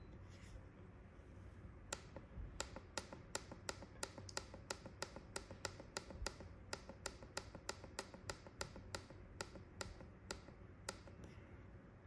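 Faint short clicks at an even pace of about three a second from the up button of a Re・De Pot electric pressure cooker's control panel as the cooking time is set, each click one step of the timer. They start about two seconds in and stop shortly before the end.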